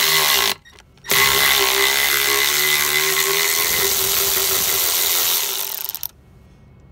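Cordless electric ratchet with a 9/16-inch socket spinning a nut off a drive's anode stud. It gives a short burst, then about a second in runs steadily for about five seconds before stopping.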